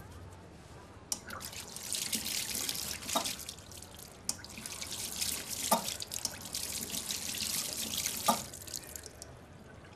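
Water running from a sensor tap into a washbasin and splashing over hands being washed. It starts about a second in and stops about a second before the end, with three louder splashes along the way.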